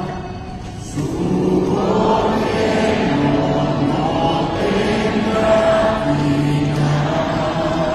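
A huge congregation singing a hymn together in held notes. There is a brief lull between phrases, and the singing comes back in about a second in.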